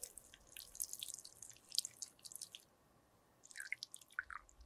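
Thick melted lipstick pouring from a small glass beaker into a metal lipstick mould: soft, sticky dripping with crackly ticks, which pauses for about half a second partway through and then picks up again.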